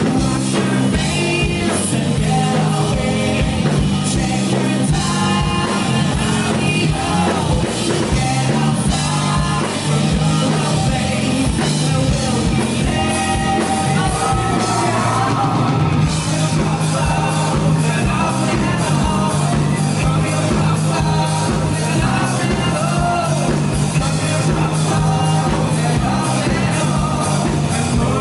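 Live rock band playing with a lead vocalist singing over guitar, bass and drum kit, the bass holding low notes under a steady beat.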